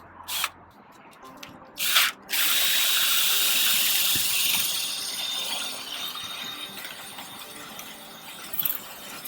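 Power drill spinning a rotary dryer-vent brush on flexible rods inside the vent duct, starting suddenly about two seconds in after a few clicks, loud at first and then running on more quietly.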